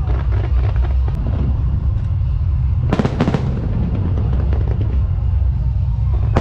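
Fireworks display: a continuous low rumble of launches and bursts, with a cluster of sharp cracks about three seconds in.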